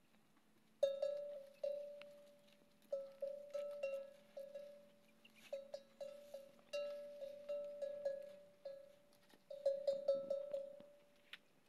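Metal bell hanging from a camel's neck ringing in irregular single strikes and quick clusters, each ring dying away, as the camel tugs at tree branches while feeding.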